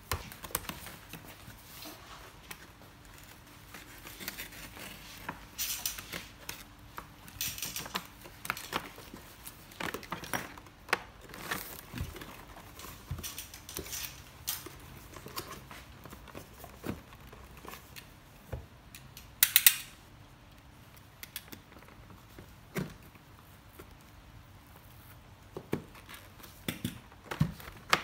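A cardboard retail box with a plastic window being handled and its top flap opened: scattered clicks, taps and rustles of cardboard and plastic, with a brief louder crackle about two-thirds of the way through.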